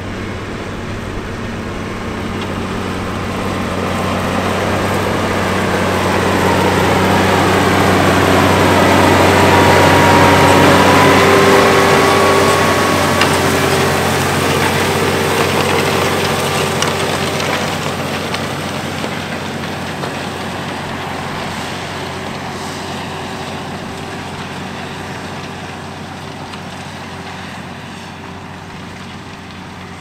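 Case IH Puma tractor's diesel engine pulling hard under load while ploughing with a multi-furrow Kverneland plough. It grows louder as the tractor passes close about ten seconds in, with a whine that bends in pitch as it goes by, then fades as the tractor moves away.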